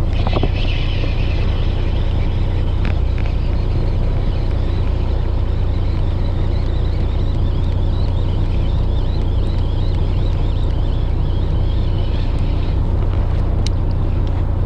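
Boat engine running with a steady low hum, under the whirr of a baitcasting reel being cranked to reel in a webfoot octopus. The whirr stops about two seconds before the end, and a sharp click follows.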